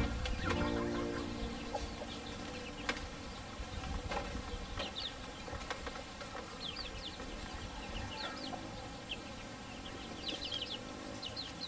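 Chickens around a farmyard, with quick runs of short, high chirps about halfway through and again near the end, over a steady low background.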